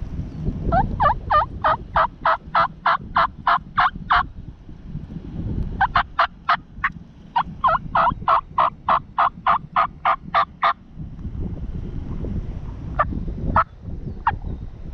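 Turkey calling: two long runs of sharp yelps, about five a second, then a few single notes near the end, over a low wind rumble.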